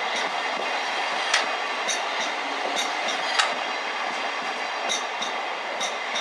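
Thameslink Class 700 electric train passing close by: a steady rushing of wheels on rail, with sharp clicks as the wheels run over the track, the loudest about a second and a half and three and a half seconds in.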